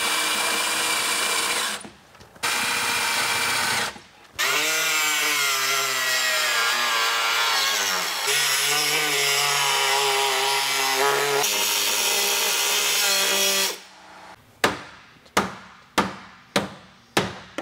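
Power drill with a spot weld cutter boring out spot welds in a car's steel floor pan, running in bursts that stop briefly twice, then a long stretch where the motor's pitch sags and rises as the cutter bites. Near the end it gives way to a run of sharp metal knocks as the spot welds are popped loose.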